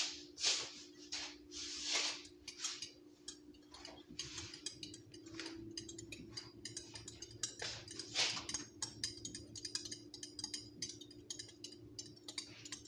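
A utensil stirring cake batter by hand in a mixing bowl, with repeated light clicks and scrapes against the bowl in an uneven rhythm of about two strokes a second.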